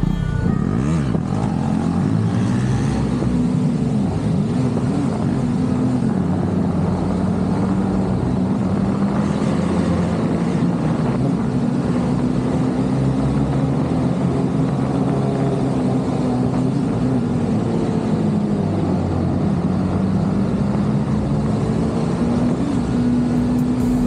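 Vehicle engine running steadily while under way, its pitch drifting gently up and down.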